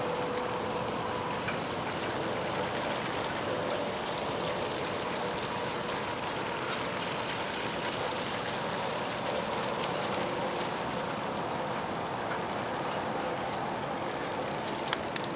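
Steady, even high hiss of an insect chorus rising from the summer woodland below.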